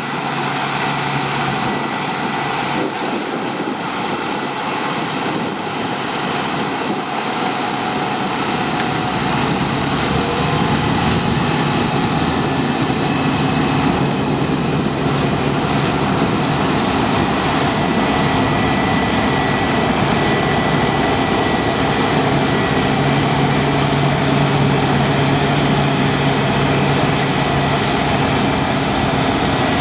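Heavy harvest machinery running steadily: a continuous engine drone with steady whining tones, getting a little louder about ten seconds in.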